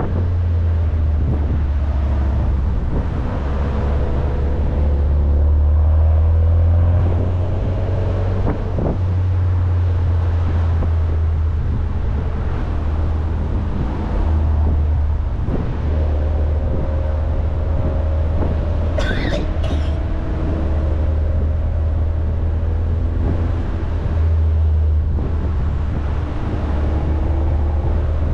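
Car engine and road noise while driving, with a steady low rumble. The engine note rises and falls again and again as the throttle changes, and there is a brief high squeak about two-thirds of the way through.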